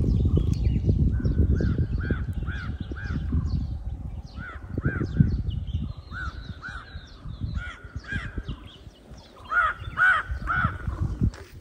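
Crows cawing in quick runs of three or four caws, the loudest run near the end, over a low rumble that is strongest in the first half.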